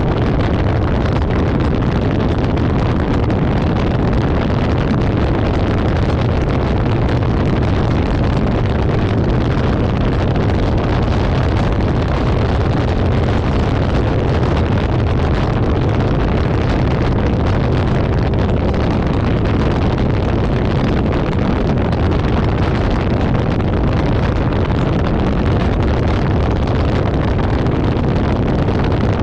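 Steady rush of wind and road noise from a car driving at highway speed, with wind buffeting the microphone.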